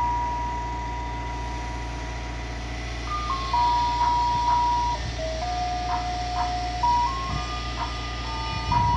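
Ice cream truck's roof loudspeaker playing its jingle, a simple melody of pure electronic notes. One note is held for the first three seconds before the tune steps on, over a steady low rumble.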